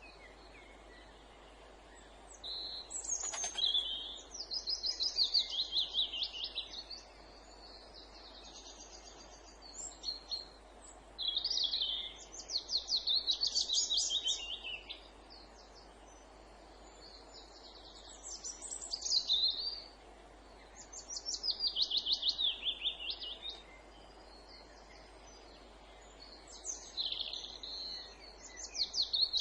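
A songbird singing in the woods: about six phrases, each a fast run of repeated notes falling in pitch over two to four seconds, with pauses of a few seconds between them, over a steady low background hiss.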